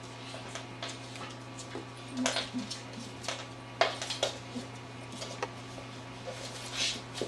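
Dogs' claws clicking and scrabbling on a hardwood floor as a golden retriever and a beagle puppy wrestle, in scattered bursts, loudest just before four seconds in.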